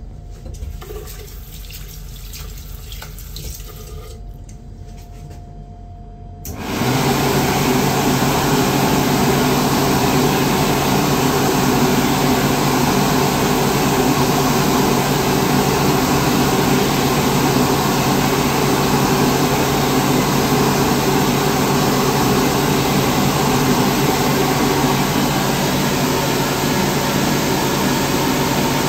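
JD MacDonald Autobeam automatic hand dryer switching on abruptly about six and a half seconds in, then running steadily with a loud rush of air over a low motor hum.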